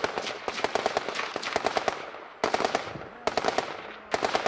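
Automatic gunfire: machine guns firing in rapid bursts of several shots, one burst after another with short pauses between, each burst trailing off in echo.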